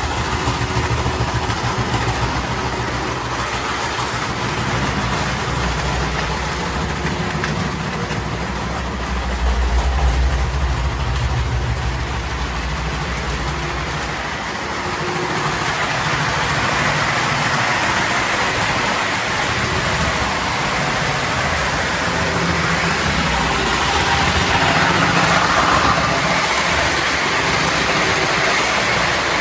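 Small prewar American Flyer toy locomotive's electric motor running and the train's wheels rolling on three-rail O gauge track as it strains to haul a long freight train. A low hum leads at first; about halfway through a louder rattle of wheels and cars takes over.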